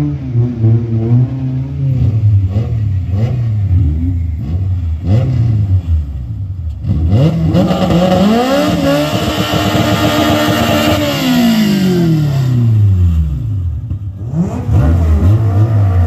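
Turbocharged Honda Civic's engine revving in short blips, then held high for about three seconds before the revs fall away slowly. Short blips come again near the end.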